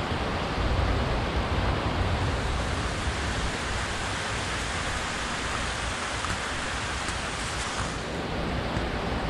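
Steady heavy rain falling on a brick-paver patio and garden plants: an even hiss, with a low rumble that is strongest in the first few seconds.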